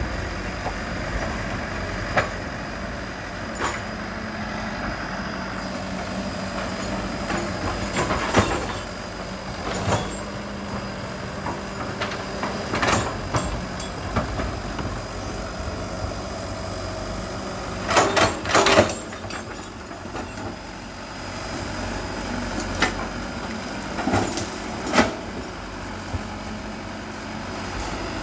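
Excavator's diesel engine running steadily, with sharp knocks and cracks breaking in now and then and a loud cluster of them about two-thirds of the way through.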